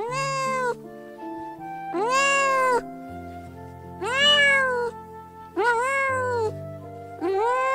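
Tabby kitten meowing repeatedly: about five high mews, one every second and a half or so, each rising and then falling in pitch, over soft background music.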